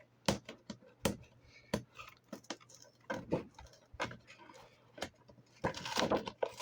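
Plastic toy packaging being handled and pried apart: a string of sharp clicks and taps, turning into busier rustling and rattling near the end.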